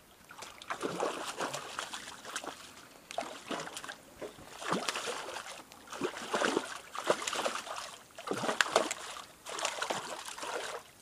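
A hooked trout thrashing and splashing at the water's surface in a run of irregular splashes, with the landing net dipped into the water near the end.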